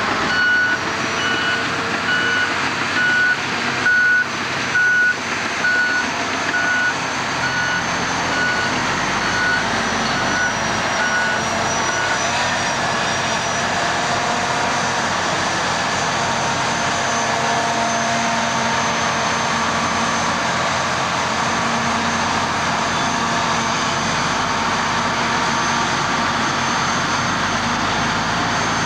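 An AEC Mercury dump truck running, with a steady diesel engine sound. A reversing alarm beeps about one and a half times a second over it and stops about twelve seconds in.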